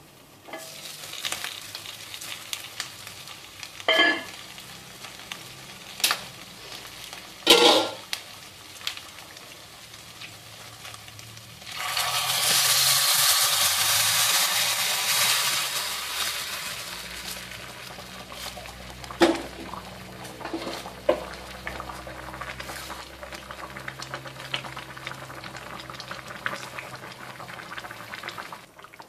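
Hot spicy-sour sauce poured from a wok into a glass saucepan of catfish, sizzling loudly for a few seconds about halfway through and then dying down to a quieter simmer. A few sharp clinks and knocks of cookware come before and after the pour.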